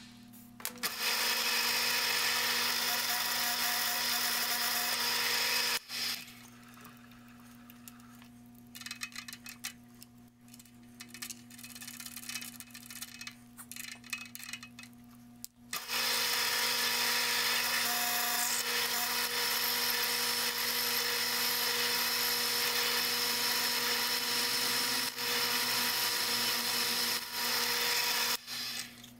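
Electric drilling machine's motor running, its twist drill cutting into an aluminium block. There are two long loud stretches of cutting, with a quieter spell between them where only the motor hum and a few clicks are heard.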